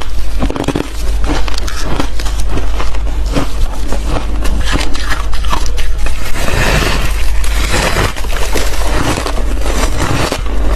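Close-up biting and chewing of soft, fluffy ice: a dense, continuous run of squeaky crunches.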